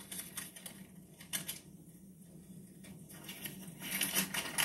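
Bible pages being leafed through in a series of short, soft rustles, heard through a television speaker over a steady low hum.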